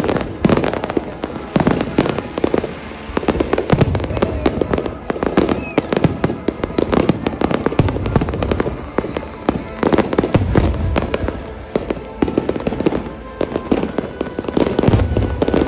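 Fireworks display: aerial shells bursting in a rapid, continuous run of bangs and crackles, with a short falling whistle about five seconds in.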